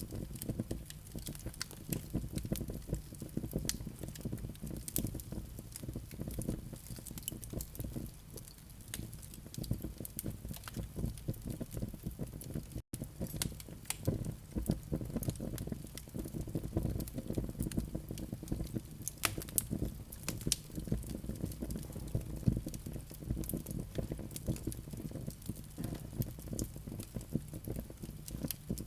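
Wood fire of flaming live coals crackling: dense small crackles over a low rumble of the flames, with sharper snaps now and then. There is a momentary break in the sound a little under halfway through.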